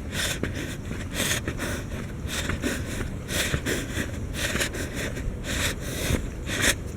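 Someone walking briskly on a trail: short, regular scuffing steps about twice a second, with breathing and a steady low rumble from a carried microphone.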